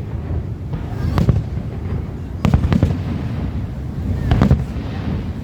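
Aerial fireworks bursting: about five sharp bangs, two of them in quick pairs near the middle and again near the end, over a steady low rumble.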